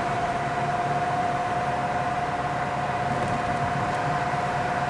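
Road and engine noise inside a car's cabin while it drives through a road tunnel, with a steady high whine held at one pitch throughout.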